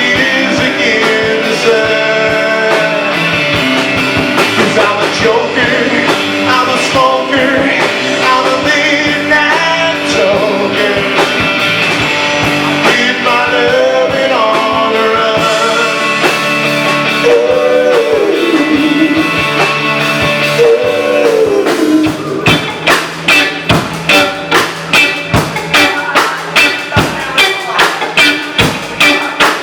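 Live rock band playing an instrumental break, a lead guitar soloing with bent, gliding notes over bass and drums. About two-thirds of the way in, the band drops into hard, even hits about twice a second.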